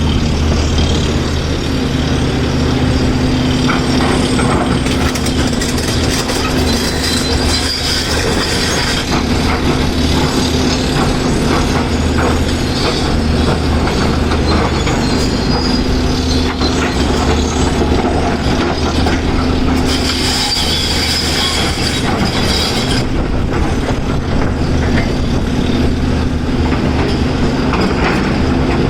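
Caterpillar 336 hydraulic excavator's diesel engine running steadily under load, with irregular clanks and rattles of rock and steel throughout. There is a stretch of brighter, higher-pitched noise about twenty seconds in.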